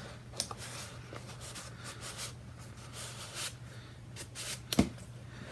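A paper sheet being slid into the clear plastic overlay pocket on the front of a binder, rubbing and rustling against the plastic, with a few light clicks and a sharper tap near the end.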